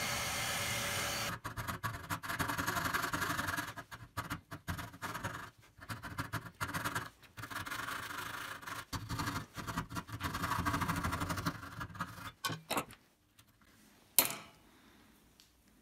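A drill press runs briefly, drilling through a wooden dowel. Then a saw cuts through hardwood by hand in short, uneven strokes for some ten seconds, and a single sharp knock comes near the end.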